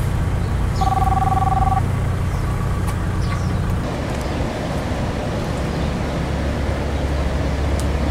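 Street traffic with a steady low vehicle engine hum. About a second in, a two-pitch tone sounds for about a second.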